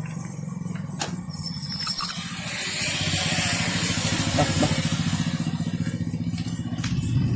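Road traffic: a vehicle's engine running low and steady as it passes, with a loud high-pitched squeal lasting about a second near the start, followed by a rushing hiss.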